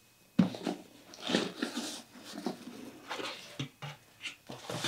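A rigid cardboard candle gift box being handled and opened: irregular knocks and rustles as the lid comes off and the tissue paper inside is touched. It starts about half a second in.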